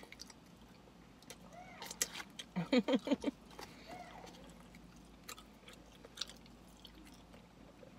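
Eating sounds of someone chewing chicken with her mouth open: lip smacks and wet mouth clicks scattered throughout, with a brief muffled vocal sound through a full mouth about three seconds in.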